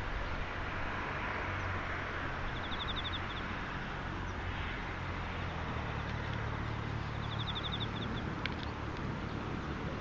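Insects calling: a steady high chirring haze with two short, evenly pulsed trills a few seconds apart, over a low steady rumble. A single click sounds near the end.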